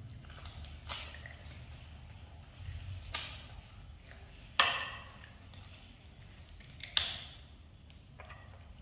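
Fresh corn being snapped and pulled apart by hand: four sharp, crisp cracks a second or two apart, the loudest about halfway through and near the end, with soft rustling of husk and kernels between them.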